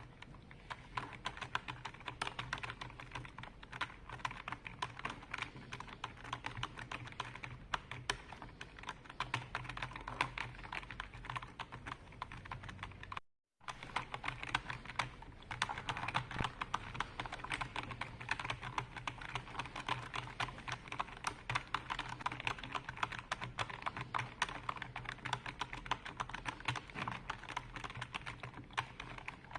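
Continuous fast typing on a computer keyboard: a dense run of keystroke clicks, with the sound cutting out completely for a split second about halfway through.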